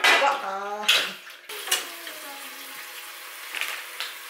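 A kitchen tap runs steadily into the sink while dishes are washed up, with a short wordless vocal sound in the first second and a half.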